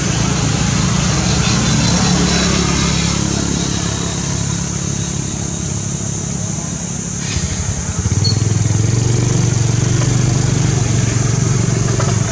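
A motor vehicle engine running steadily with a low drone, which turns deeper and louder about eight seconds in.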